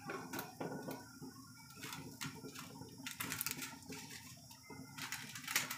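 Pot of mung bean soup bubbling on the stove, with irregular small pops of bursting bubbles.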